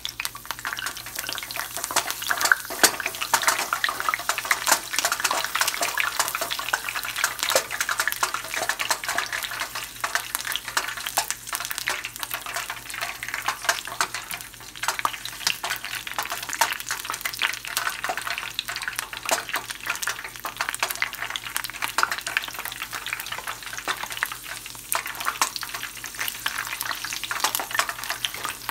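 Basil leaves deep-frying in hot oil in a small pot, a steady sizzle full of quick crackling pops.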